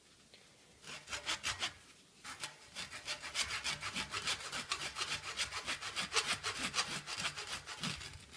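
A knife blade sawing back and forth through the tightly wound yarn of a baseball's centre, toward the small, hard core. There is a short run of strokes about a second in, then fast, steady strokes, several a second, until just before the end.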